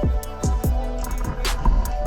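Background music with a hip hop style beat: deep bass kicks that drop quickly in pitch about twice a second, crisp hi-hat ticks and held synth tones.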